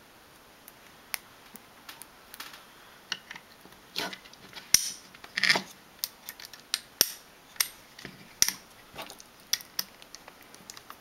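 Small plastic and metal parts of a 3D-printer printhead clicking and clacking as they are handled and fitted together by hand. The clicks are irregular, loudest and busiest about halfway through.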